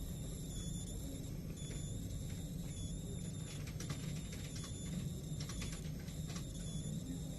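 Lenovo ThinkPad E15 laptop giving off electrical noise with its charger plugged in: a steady high-pitched whine with faint crackling that comes and goes several times.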